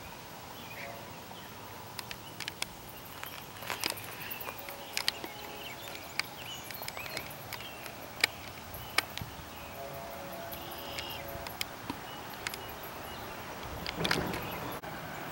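Quiet outdoor ambience by a railway line: faint bird chirps and insects over low background noise, with scattered sharp clicks.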